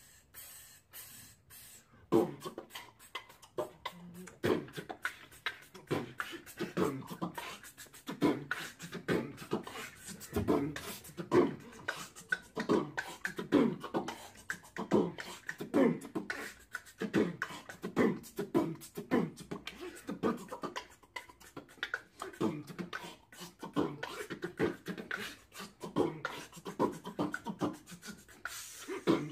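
Two people beatboxing together with hands cupped over their mouths: a rhythmic drum beat made with the mouth, starting about two seconds in.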